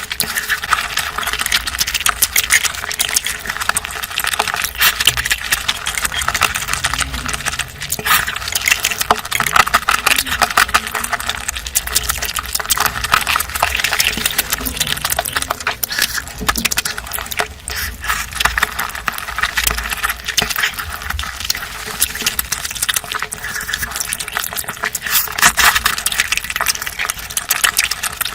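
Close-miked eating: chewing and wet mouth clicks in a dense, continuous run.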